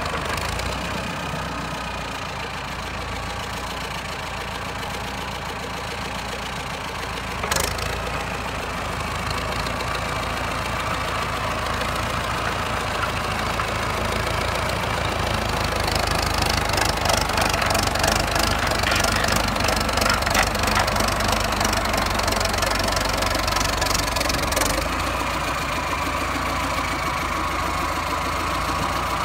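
DT-75 crawler tractor on the move, its freshly rebuilt diesel engine running steadily, with one sharp knock about seven seconds in. From about halfway to near the end it gets louder, with a rapid clattering from the steel tracks and running gear, then settles back to a steady run.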